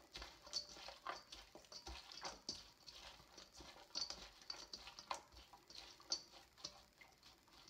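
Dressed shaved-fennel salad being tossed by hand in a stainless steel mixing bowl: faint, irregular light clicks and rustles as the wet slices are turned against the metal.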